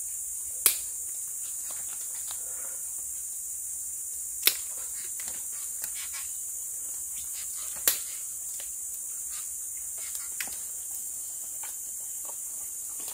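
Steady high-pitched chorus of forest insects, with three sharp clicks about a second in, halfway through and just under two-thirds of the way through.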